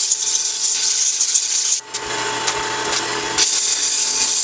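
Sandpaper rubbing against a thin wooden wand spinning on a wood lathe: a steady sanding hiss over the lathe's steady whine. There is a brief break in the rubbing about two seconds in.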